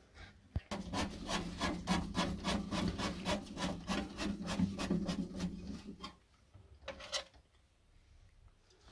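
Hand screwdriver driving a screw into a boiler's sheet-metal combustion cover: a fast, even run of rasping clicks for about five seconds, then two brief scrapes a second later.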